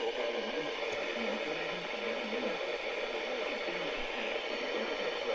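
Hiss and static of a weak NOAA Weather Radio FM signal on the 162 MHz weather band, with the broadcast voice faint and broken beneath the noise.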